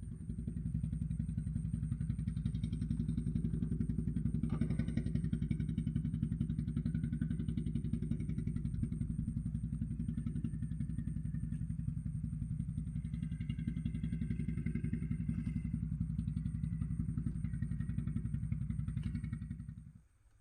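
A small engine running steadily at an even speed, with a rapid low pulsing, that cuts off abruptly near the end.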